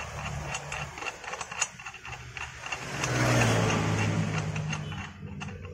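Light metallic clicks and ticks as a steel bolt is screwed by hand into a re-tapped thread. About three seconds in, a vehicle engine comes up louder, runs steadily for about two seconds and then fades.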